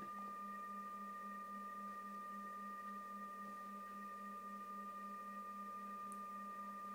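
A steady high-pitched electronic tone with a weaker higher tone above it, over a faint, slightly pulsing low hum.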